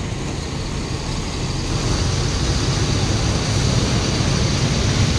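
Large coach bus engine running as the bus pulls away, a steady low rumble that grows a little louder about two seconds in.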